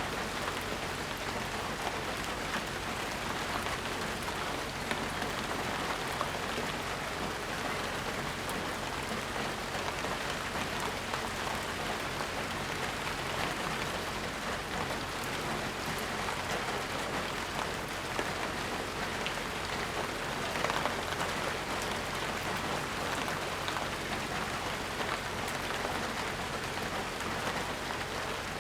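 Steady, even rain with no thunder: a constant hiss dotted with small drop impacts, briefly a little louder about 21 seconds in.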